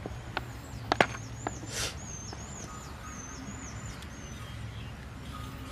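A cleaver chopping raw chicken on a wooden chopping board: a few sharp knocks in the first second and a half, the loudest about a second in. A bird chirps repeatedly in the background from about a second in until about four seconds.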